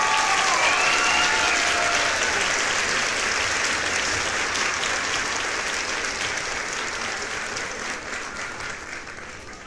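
Applause, with a brief gliding cheer at the start, fading down gradually toward the end.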